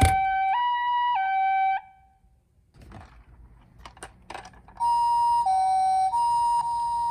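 Two-tone ambulance siren alternating between a high and a low note in the Japanese 'pee-poh' pattern. It cuts off about two seconds in, a few short clicks follow in the quiet gap, and the same two-tone siren starts again about five seconds in.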